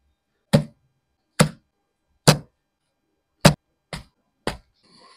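Six short thuds, one at a time, as plastic-wrapped kimbap rolls are set down on a wooden serving board.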